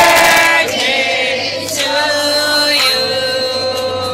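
Several voices singing together in long held notes.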